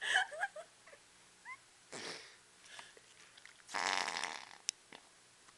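Noise putty being squeezed and pressed with the fingers in its jar, letting out fart-like squelches: a short squeaky burst at the start, a smaller one about two seconds in, and a longer buzzy one near four seconds, followed by a sharp click.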